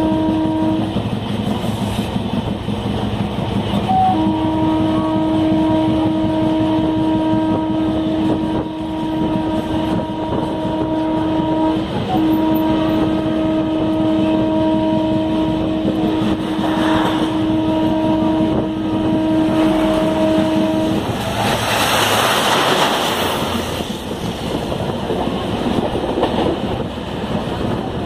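Running noise of a moving Indian Railways passenger train, heard through an open coach window. A steady pitched tone sounds over it at the start and again from about four seconds in, stopping a little after twenty seconds, followed by a brief surge of louder rushing noise.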